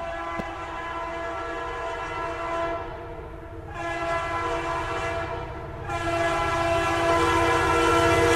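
Train horn sounding in long held blasts, with short breaks about three seconds and five and a half seconds in, over the low rumble of a passing train.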